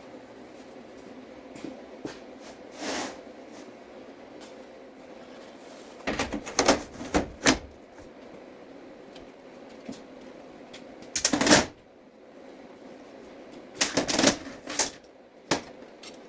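Workshop handling noises: several short bursts of clunks and clatter as things are moved and set down, the loudest a little past the middle, with a steady low background hum between them.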